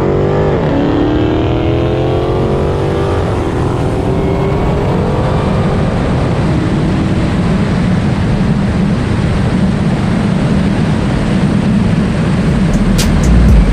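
Car engines accelerating hard, climbing in pitch with a gear shift about three seconds in, then giving way to a loud steady rush of wind and road noise.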